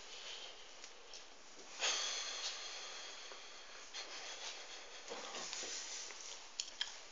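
A man breathing hard through his nose, with a sharp exhale about two seconds in that fades over a second, while his mouth burns from hot chili peppers. Two small clicks come near the end.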